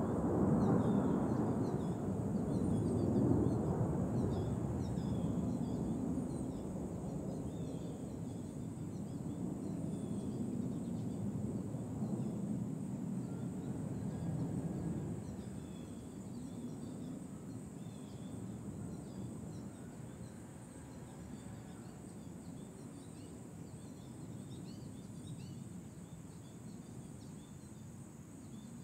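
Distant rumble of USAF Thunderbirds F-16 fighter jets fading slowly away after a pass, with small songbirds chirping over it.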